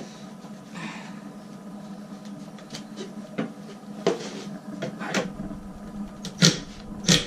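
Handling noises: scattered light clicks and rustles, then a few louder, sharp knocks near the end.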